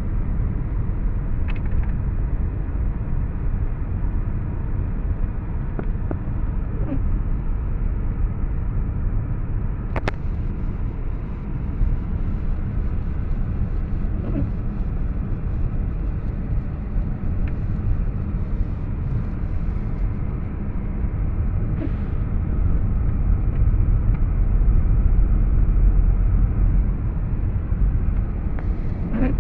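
Car cabin noise while driving on a snow-covered road: a steady low rumble of engine and tyres, a little louder past the middle, with a few faint clicks.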